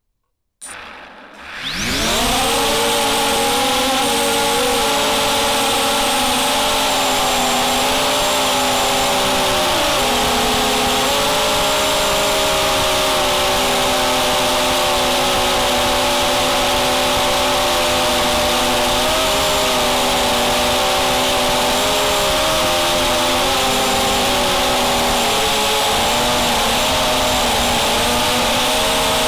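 Brushless motors and propellers of a QAV250 racing quadcopter, heard from its onboard camera. Under a second in, the motors spin up with a rising whine. They then hold a steady, loud whine whose pitch shifts up and down as the throttle changes in flight.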